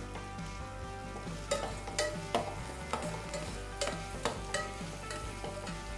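Chopped onions sizzling in hot oil while being stirred with a perforated steel spoon, which clicks and scrapes against the stainless steel pot several times.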